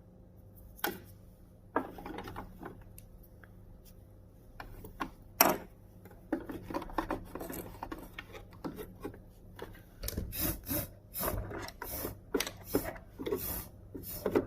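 Rubbing and scrubbing on the body of a Singer Quantum Stylist 9960 sewing machine as lint and dirt are cleaned off it. A few sharp knocks come first, then quick repeated scrubbing strokes in the last few seconds.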